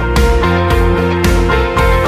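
Background music, instrumental, with a steady beat.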